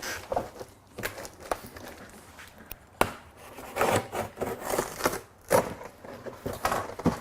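Packaging rustling and crinkling as a heavy powder-coated steel band saw table is unpacked and handled, with scraping and a few sharp knocks, the sharpest about three seconds in.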